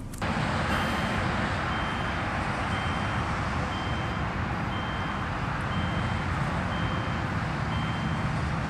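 Wind blowing hard across the microphone, a loud steady rush that cuts in suddenly just after the start. Through it, a high electronic beep sounds about once a second.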